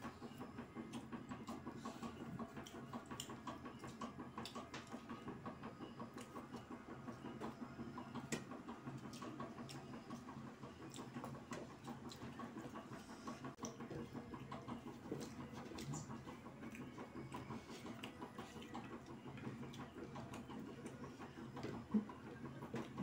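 Quiet eating sounds of people eating biryani by hand: chewing, and fingers mixing rice on plates, with many small irregular clicks over a steady low hum.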